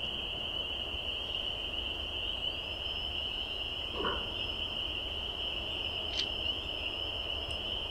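A steady, high-pitched animal chorus, such as calling frogs or insects, runs throughout, with a fainter thin high tone joining after about two and a half seconds. A brief knock about four seconds in and a small click about two seconds later.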